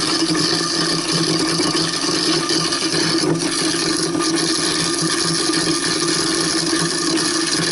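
Waste King garbage disposal running steadily with tap water flowing, grinding lamb shank bones: a constant motor whir under a dense grinding noise.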